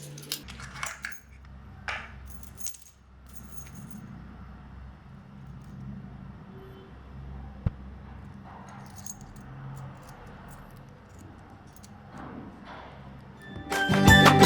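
Small brass padlock and its keys being handled: scattered light metallic clicks and clinks over quiet handling noise, one sharper click about halfway through. Music starts loudly just before the end.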